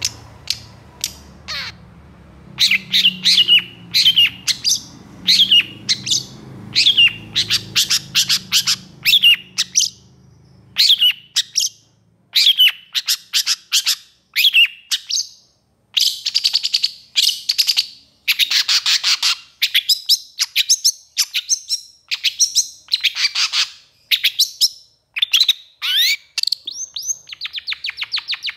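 Long-tailed shrike (pentet) singing excitedly in full voice: sharp notes sweeping down in pitch, repeated about once or twice a second. From about halfway through they run together into fast chattering trains.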